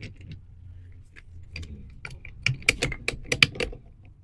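A quick run of light clicks and taps from the PVC irrigation fittings and pressure regulator being handled and fitted, thickening into a dense clatter about two and a half seconds in.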